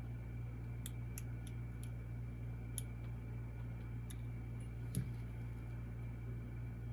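A few light, irregular clicks of small metal lock parts being handled, as the pins and core of a Goal V18 lock are worked with tools during disassembly, over a steady low hum.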